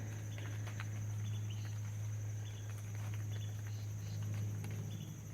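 Crickets and other insects chirping: a steady high drone with short repeated chirps over it, and a few scattered faint ticks. A steady low hum runs underneath and is the loudest thing.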